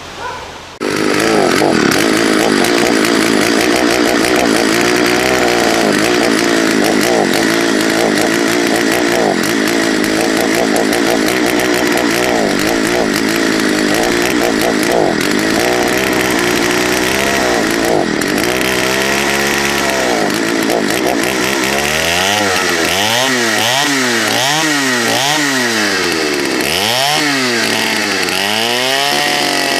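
A 1979 Partner S-55 two-stroke chainsaw running, starting about a second in. In the second half its engine speed repeatedly rises and falls.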